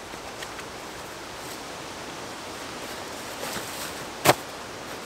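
OneTigris folding camp chair being assembled: fabric rustling and faint knocks as the seat is worked onto the frame, with one sharp clack of the frame a little over four seconds in, over a steady hiss of woodland ambience.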